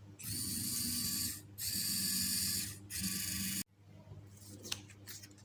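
Quarky robot car's small geared drive motors whirring in three runs of about a second each, with short pauses between them, as the car drives along the track. The sound cuts off abruptly about three-quarters of the way through, leaving a few faint clicks.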